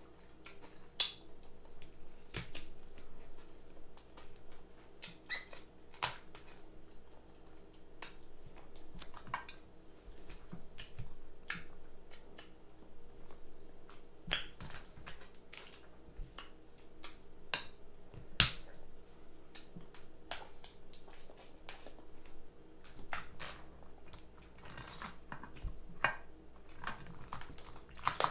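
Crab legs being eaten close to the microphone: irregular sharp snaps and clicks of shell cracking, with wet chewing and lip-smacking between them and one louder crack a little past the middle.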